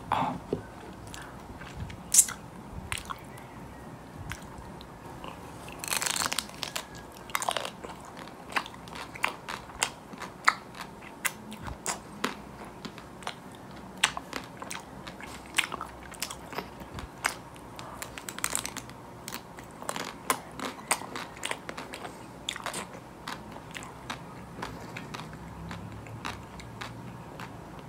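Close-miked biting and chewing of a nut-studded chocolate-coated ice cream bar dipped in Nutella: the hard chocolate shell crackles in many sharp snaps between wet chewing, with a longer crunching bite about six seconds in.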